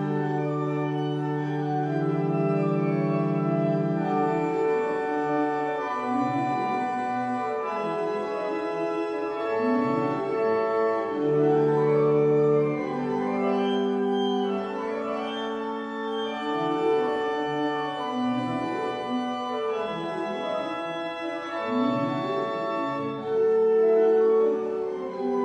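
Weimbs pipe organ (two manuals, eleven stops) playing a Baroque prelude: sustained low chords at first, then running passages over held notes.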